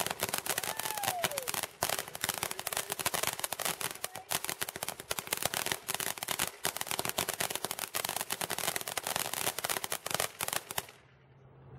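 Consumer ground fireworks: spark fountains going off with dense, rapid crackling that stops suddenly near the end.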